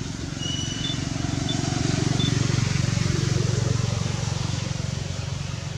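A motor vehicle's engine hum that swells to its loudest in the middle and then fades, with a few short high chirps about a second in.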